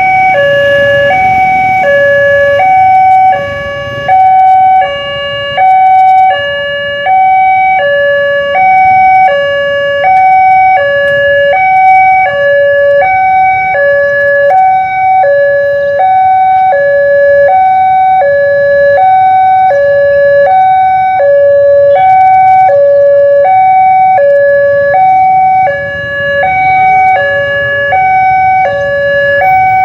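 Indonesian railway level-crossing electronic warning alarm, sounding a two-tone signal that switches between a lower and a higher pitch about every half second, warning that a train is approaching while the barrier is down.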